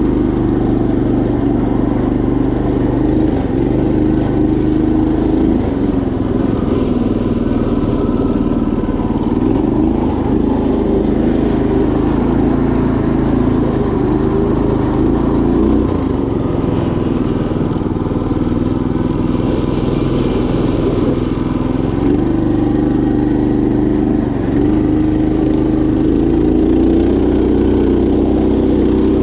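Predator 212 single-cylinder four-stroke engine in a Craftsman GT5000 riding mower running under load while driving over a trail, its pitch rising and falling several times with the throttle.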